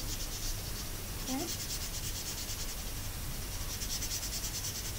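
Felt-tip marker scratching on paper in quick back-and-forth colouring strokes, a fast, even scratching rhythm that is weaker for the first second or so.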